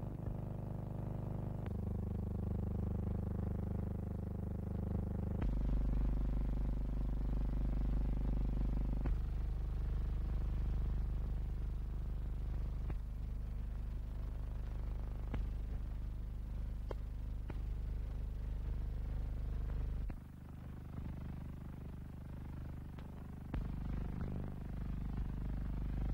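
Engines of the Blackburn Iris III three-engined biplane flying boat running with propellers turning: a steady drone that shifts in pitch and level several times, with a few faint clicks.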